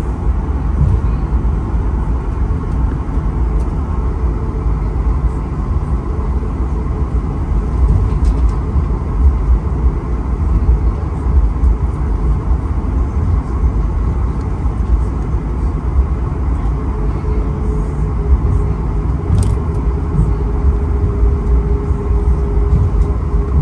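Cabin sound of a Boeing 737 MAX 8 taxiing: its CFM LEAP-1B turbofans run at low thrust over a steady low rumble from the aircraft rolling along the taxiway. A steady hum joins about two-thirds of the way in.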